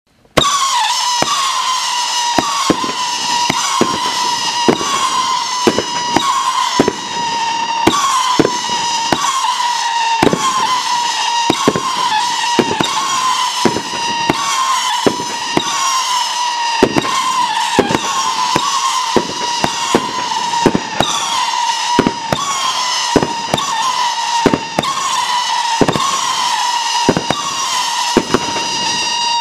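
Howling Peony 500-gram, 25-shot fireworks cake firing: a continuous howling whistle from the rising shells, dipping in pitch again and again, punctuated by many sharp bangs of launches and bursts. It starts abruptly about half a second in.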